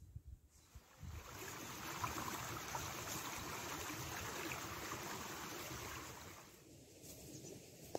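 A small stream flowing: a steady rush of water that sets in about a second in and fades away near the end.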